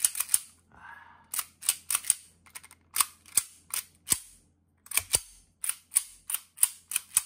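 Action of a KWC full-metal Colt 1911 Series 70 CO2 airsoft pistol being worked by hand: slide and hammer give sharp metallic clicks and snaps in quick clusters of two to four.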